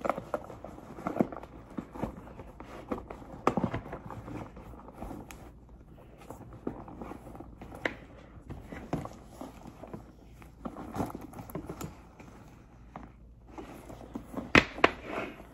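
Handling noise of a leather handbag and the things being packed into it: scattered rustles, taps and clicks, with a sharp click near the end.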